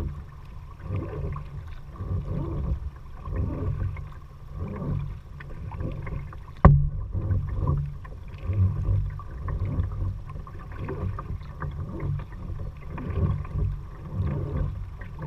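Kayak paddle strokes dipping and splashing in a steady rhythm, about one stroke a second, with water sloshing. A single sharp knock comes a little past halfway through.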